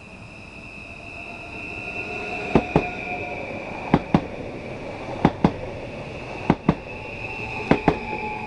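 An NS electric passenger train passing close by. Its wheels clack over a rail joint in five quick pairs about a second and a quarter apart, over a steady high whine.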